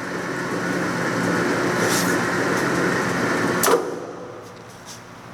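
Standard Modern Series 3000 lathe's spindle and headstock gearing running in the high speed range with a steady mechanical hum. There is a sharp click about two seconds in and a clunk a little before four seconds, after which the running sound winds down.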